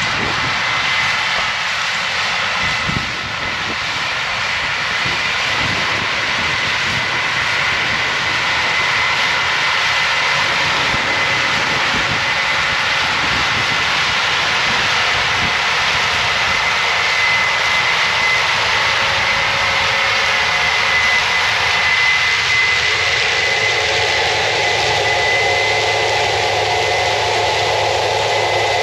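Combine harvester running steadily under load while harvesting corn, a continuous machine noise with a high, steady whine; a low hum grows stronger near the end.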